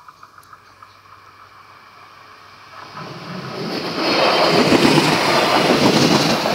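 Regional passenger train approaching and passing close by: a rushing rumble that swells from about three seconds in and is loud over the last two and a half seconds.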